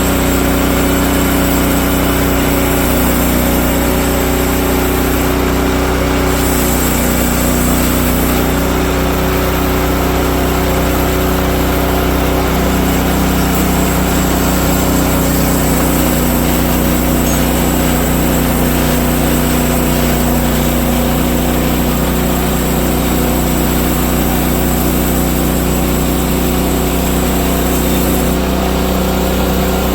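Gas engine of a Woodland Mills HM130 MAX portable bandsaw mill running steadily, with slight shifts in its pitch a few times.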